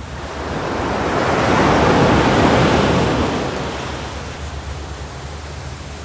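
Ocean surf: one wave washing up the beach, its rushing hiss swelling over about two seconds, peaking, then fading away.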